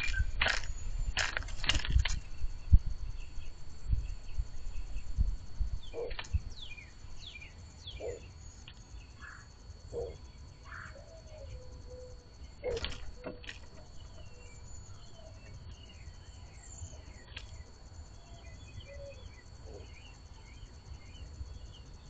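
Mourning dove pecking at seeds in a cardboard box feeder: a run of sharp taps and clicks in the first several seconds, a few more about halfway through. Small birds chirp faintly in the background over a low steady rumble.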